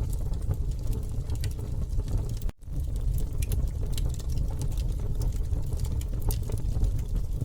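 Campfire burning: a steady low rumble of flames with frequent irregular crackles and pops from the burning wood. The sound cuts out for a split second about two and a half seconds in.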